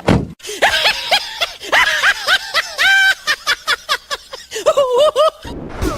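High-pitched laughing in a quick run of short repeated bursts, stopping shortly before the end.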